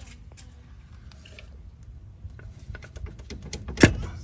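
Light plastic clicks and taps as a distributor rotor is handled and pulled clear of the distributor shaft, ending in one sharper knock near the end.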